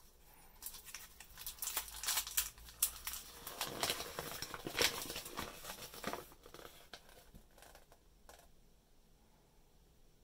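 Crinkling and rustling of plastic-wrapped packets and a folded paper collector's checklist being pulled from a toy surprise ball and unfolded by hand: a dense run of sharp crackles, strongest in the middle, thinning to a few light ticks after about seven seconds.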